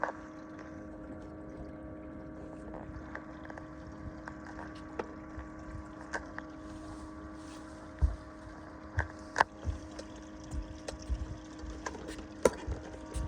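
A small motor hums steadily at an even pitch, with a few short knocks and thumps, the loudest about 8, 9 and 12.5 seconds in.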